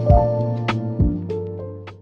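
Soft background music with held chords, a steady bass line and light percussive hits, fading out toward the end.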